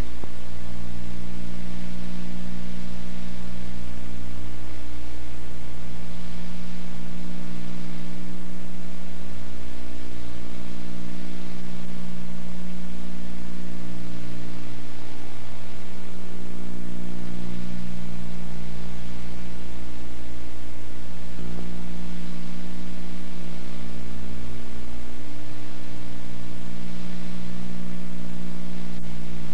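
Steady loud electrical hum with a ladder of overtones and even hiss over it. No clear collisions, voices or music come through.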